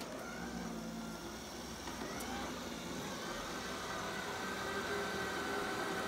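Shark ION RV700 robot vacuum running on carpet: a steady motor whir with a thin whine, growing louder as it comes closer.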